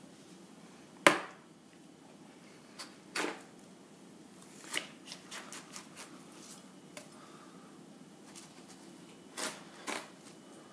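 Knife slicing through a whole watermelon and the melon being worked apart by hand: a sharp knock about a second in, then scattered short cracks and clicks of the blade in the rind, with two louder cracks near the end.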